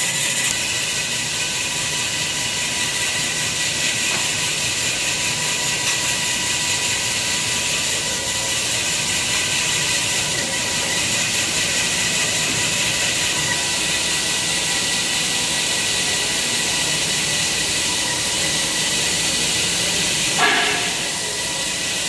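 Steady hiss of workshop machinery running, with a faint steady whine underneath. A short knock about twenty seconds in.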